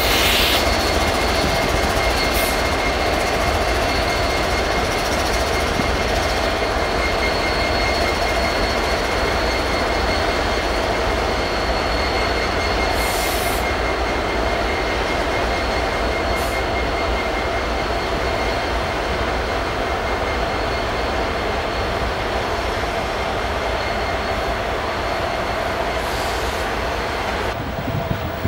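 CN freight train passing close by: diesel locomotives and stack cars rumbling over the rails, with a steady high-pitched whine running over the rumble.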